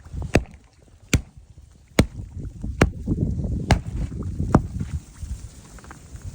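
Ice being chopped open with a hand tool to make a drinking hole in frozen water: six sharp blows a little under a second apart, with low crunching and shifting sounds between them.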